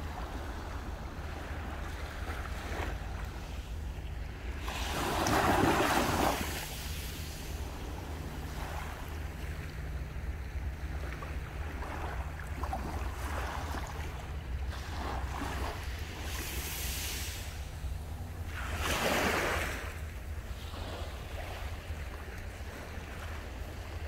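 Sea waves breaking on the shore, with two louder surges about five and nineteen seconds in, over a steady low rumble of wind on the microphone.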